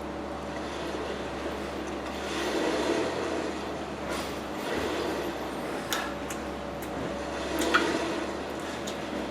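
Close-up eating sounds: chewing and mouth noises in slow swells, with a few small sharp clicks near the end.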